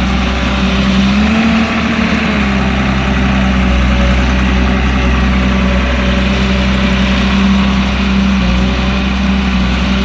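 Caterpillar E200B excavator's diesel engine running steadily, its pitch rising briefly about a second and a half in.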